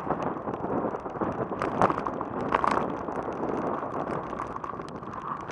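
Bicycle rolling fast downhill over a rough dirt and gravel track: a steady rumble of the tyres, dense with sharp rattles and clicks from stones and the shaking bike.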